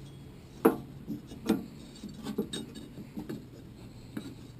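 Scattered knocks and clinks of a V-belt being worked over the pulleys of a steel mower deck by hand, a sharp one a little under a second in and several lighter ones after it.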